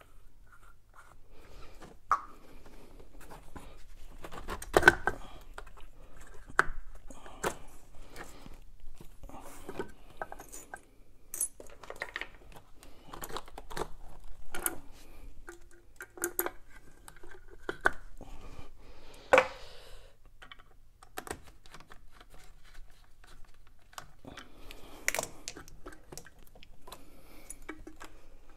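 Irregular metal clinks, scrapes and knocks of brass wall-elbow fittings being fitted onto their metal mounting plates by hand; the sharpest knocks come about five and twenty seconds in.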